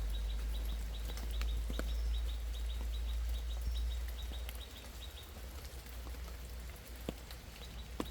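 Outdoor ambience: a steady low rumble under a rapid series of short, high chirps, about five a second, that stop about five seconds in, with scattered ticks of drops.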